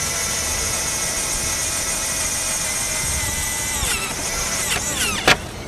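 Power drill running steadily while drilling new rivet holes, then its pitch falls and wavers as the trigger is let off, with a sharp click about five seconds in before it stops.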